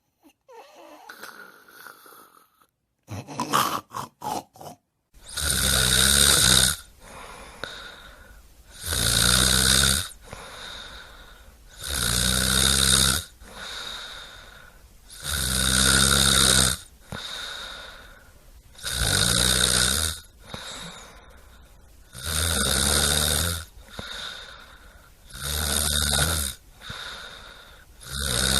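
A sleeping person snoring loudly in a steady rhythm, one snore about every three seconds, each lasting a second or so, with softer breaths between. Before the snoring starts about five seconds in, there are a few short clicks.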